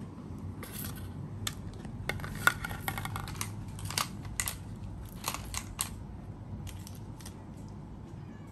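Hard plastic toys clicking and clattering on a tiled floor as a baby macaque handles and knocks them about: a quick irregular run of sharp clicks, thickest in the middle and dying away after about six seconds, over a low steady hum.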